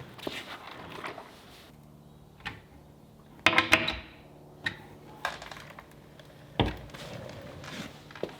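A series of separate knocks and clunks, the loudest a close pair about three and a half seconds in, over a faint steady hum.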